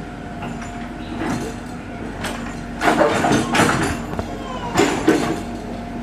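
Diesel engine of earth-moving machinery (excavator or bulldozer) running steadily, with a few short, louder noises about two, three and five seconds in.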